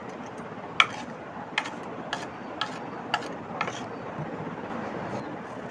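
A run of six sharp clicks, about two a second, the first the loudest, over a steady background noise.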